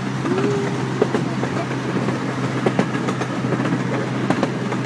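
Amusement-park ride train rolling along its track: a steady running hum with frequent clicks and rattles from the wheels and cars.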